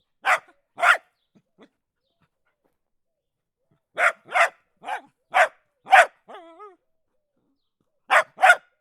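A dog barking in short separate barks: two, a pause of about three seconds, a quick run of five, then two more. A brief wavering whine follows the run of five.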